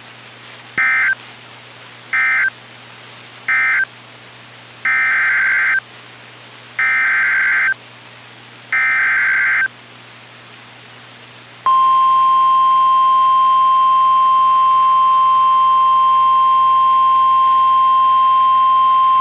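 NOAA Weather Radio emergency alert signals: three short screechy data bursts (the end-of-message code closing the previous warning), then three longer data bursts (the SAME header of the next severe thunderstorm warning). About two seconds later the loud, steady single-tone weather radio warning alarm begins.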